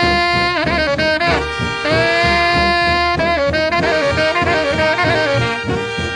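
Swing jazz music: a horn section of saxophones and brass holds long chords that dip briefly in pitch now and then, over a steady beat.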